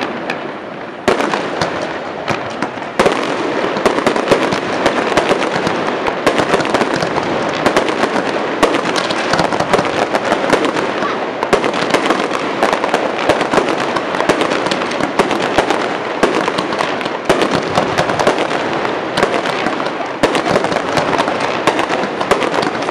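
Aerial fireworks going off in quick succession, a dense string of bangs and crackling. There is a brief lull at the start, and the barrage thickens from about three seconds in.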